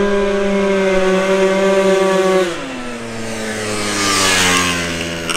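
120cc stroker two-stroke engine of a Honda Elite scooter at full throttle, a steady buzzing note that drops in pitch about halfway through as the scooter goes past. It pulls cleanly without bogging.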